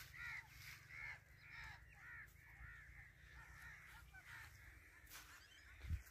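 Faint, harsh bird calls repeated two or three times a second, typical of crows cawing, over a low rumble that fades about four seconds in. A soft low thump sounds near the end.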